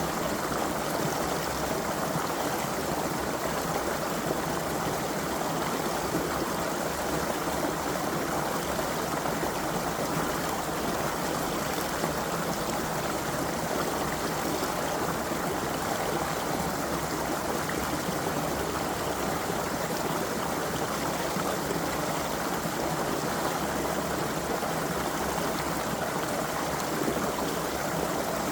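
Creek water flowing steadily, an even, unbroken rush.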